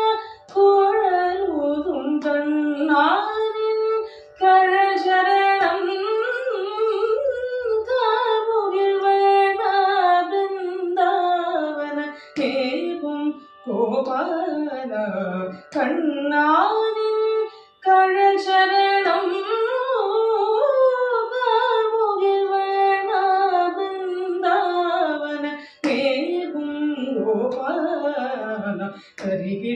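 Female Carnatic vocalist singing unaccompanied phrases, her pitch sliding and oscillating in ornamented glides, with short breaks for breath between phrases. A faint steady drone from an electronic shruti box runs beneath the voice.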